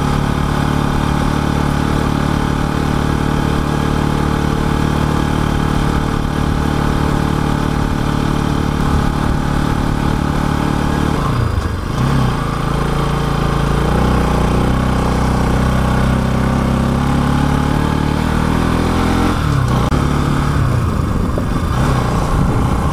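Motorcycle engine running steadily under way on a gravel road, its note dipping and climbing back twice, about 11 seconds in and again near 20 seconds.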